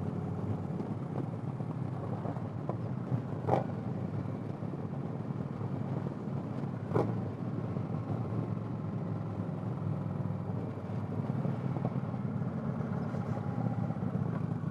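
Motorcycle V-twin engine running steadily at road speed, with wind and road noise, heard from the rider's microphone. Two short knocks come about three and a half and seven seconds in.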